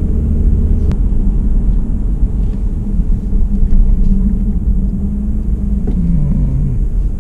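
Car engine and road rumble heard from inside the cab while driving, a steady low drone; the engine note falls about six seconds in as the vehicle slows.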